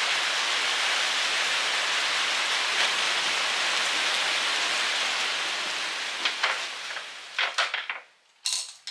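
Steady rain falling, a dense even hiss that fades out about seven seconds in. A few sharp clicks follow, then one louder short snap near the end.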